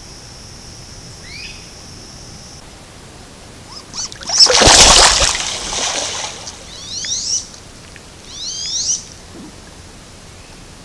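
Wood ducks splashing hard on the water surface in a loud rush lasting over a second, about four seconds in, followed by two short rising squealing calls. A steady high buzz runs through the first couple of seconds before stopping.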